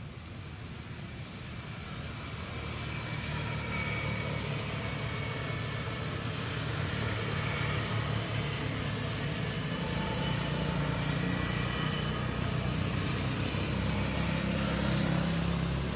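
A motor vehicle's low engine rumble, growing louder over the first few seconds and then running steadily.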